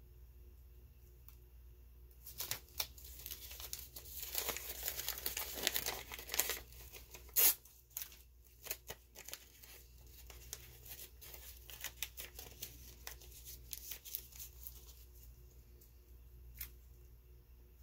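Crinkling and rustling of a crumpled sheet being pressed and dabbed onto wet spray paint by a gloved hand. It is dense for a few seconds, with one sharp crackle about seven seconds in, then thins to scattered light crinkles.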